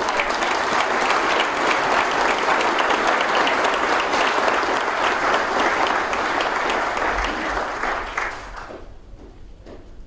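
Audience applauding, dense clapping that fades out about eight seconds in.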